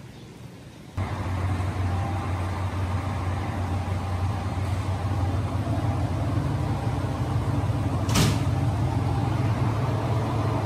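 Train running: a steady low rumble that starts abruptly about a second in, with one sharp click near the end.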